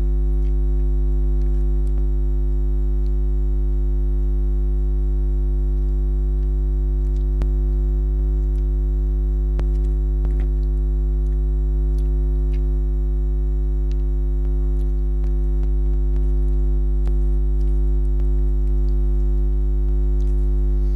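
Loud, steady electrical hum: a stack of unchanging tones that drowns the recording, an audio fault. Faint scattered clicks sit under it.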